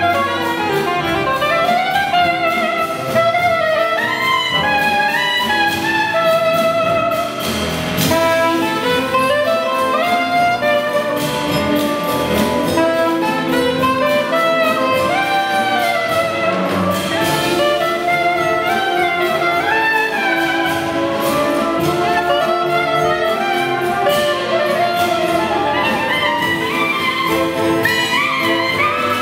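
Live jazz big band with a soprano saxophone solo: the saxophone plays quick, sliding melodic runs over sustained band chords, with drums and cymbals striking throughout.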